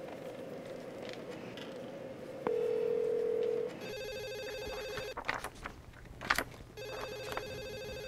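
A steady ringback tone of about a second through the phone receiver, then a landline telephone's electronic ringer trilling in two bursts of about a second each. The call goes unanswered. A few knocks and rustles fall between the rings.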